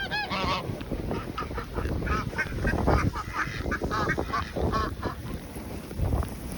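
A flock of domestic waterfowl calling, many short quacking calls in quick succession.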